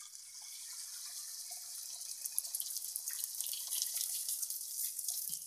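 Beaten egg sizzling as it is poured onto a hot oiled tawa: a steady hiss that turns more crackly from about two seconds in as the egg's edges fry.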